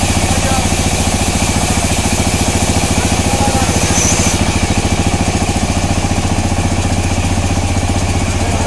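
A sawmill's engine running steadily, with a fast, even pulse.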